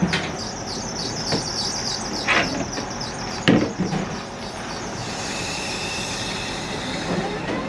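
Diesel railcar idling at a station with its door open: a steady low hum under a run of rapid high chirping. Sharp knocks come at about one and a half and two and a half seconds, and a louder thump about three and a half seconds in.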